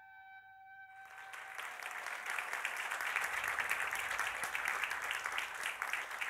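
Audience applauding in a hall, the clapping swelling up over the first two seconds and then holding steady. A held violin note from the background music fades out as the applause begins.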